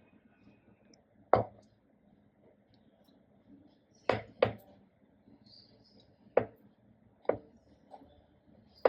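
A handful of short, sharp knocks at uneven intervals, two of them in quick succession about four seconds in, over a quiet background.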